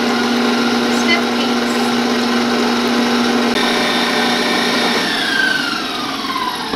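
Stand mixer motor running with its wire whisk beating egg whites and sugar into meringue, a steady whir. About five seconds in it is switched off and spins down with a falling whine.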